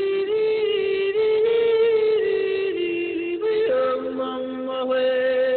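A voice singing long held notes that step up and down in pitch without breaks for words, then, about three and a half seconds in, settling onto one steady held note over a lower tone.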